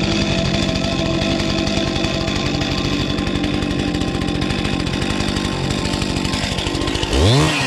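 Chainsaw running steadily as it carves wood, then revving up and back down near the end.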